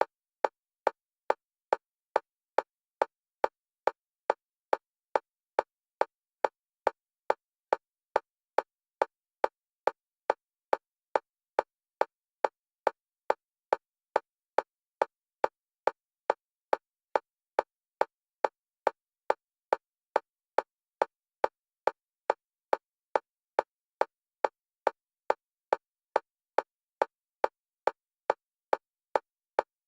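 Metronome clicks at a single pitch, evenly spaced at about two a second, alternating between the left and right stereo channels for EMDR bilateral stimulation.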